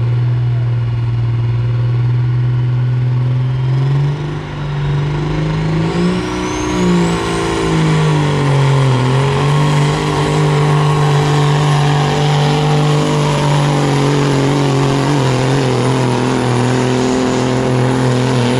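Semi truck's diesel engine running hard at high revs under load while pulling a weight sled. The engine pitch wavers and dips between about four and nine seconds in, then holds high and steady. A high whine climbs about five seconds in.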